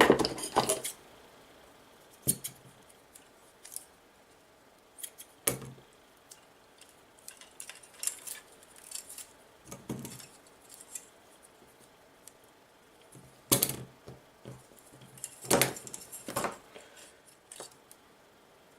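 Small parts and hand tools being handled on a workbench: irregular clicks, taps and light scrapes as a small drone's screws, nuts and frame pieces are fitted together, with the busiest clatter about two-thirds of the way in.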